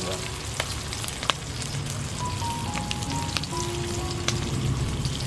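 Chopped onions frying in hot oil in a wok: a steady sizzle with scattered crackles and pops.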